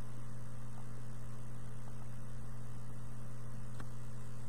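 Steady low electrical hum with hiss, and a few faint ticks.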